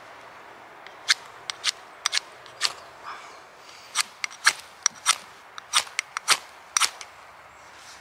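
A ferro rod (fire steel) struck again and again with the back of a knife blade: about fifteen quick, sharp scrapes in uneven bursts, starting about a second in, throwing sparks to light a tin of stove fuel.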